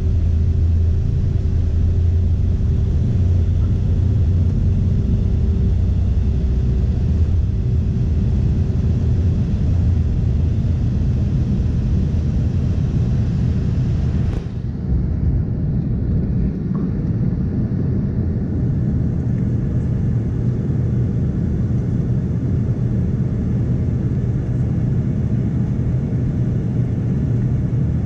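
Cabin noise of an Embraer 145 taking off: a loud, steady, deep rumble from its rear-mounted Rolls-Royce AE3007 turbofans at takeoff power as it rolls down the runway, lifts off and climbs. A single sharp knock comes about halfway through, after which the hiss grows a little duller.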